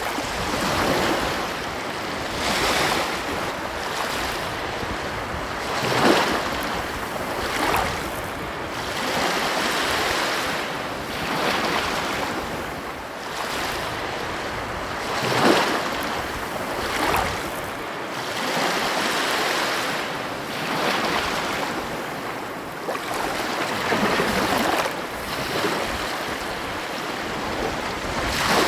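Ocean surf breaking and washing on a beach, a steady rush that swells and ebbs every few seconds, with sharper breakers about six seconds in and again around the middle.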